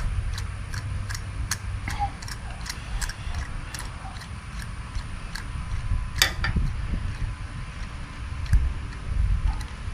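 Hand tap being turned in a tap wrench to chase the threads of a hole just cleared of a broken bolt, giving small irregular ticks and clicks, about two or three a second.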